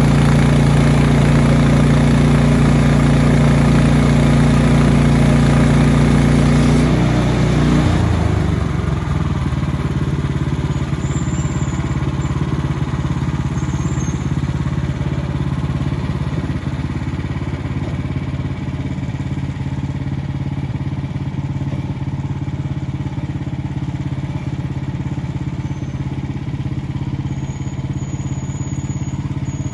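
Frontier OS23 bandsaw sawmill's small gas engine running at high speed, then throttled down about seven to eight seconds in and running on at a lower, steady idle.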